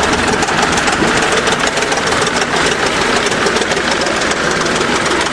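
1953 International TD-20 crawler bulldozer's diesel engine idling with a steady, fast, rough beat.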